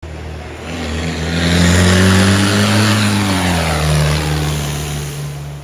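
A car driving past through the flooded ford: its engine note drops in pitch as it goes by, over a loud rush of water spray that swells and then fades.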